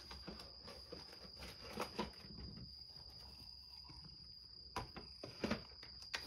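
Quiet room tone with a steady high-pitched whine and a few soft clicks and rustles.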